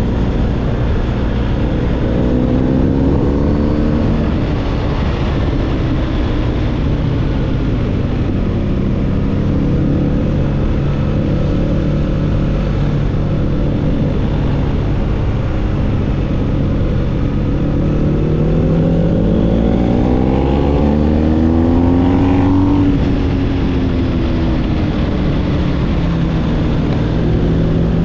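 BMW R1250GS boxer-twin engine running through an SC Project SC1-R GT aftermarket exhaust while riding. The note dips in the first few seconds, holds steady, climbs under acceleration for several seconds from about two-thirds through, then drops sharply as the throttle closes.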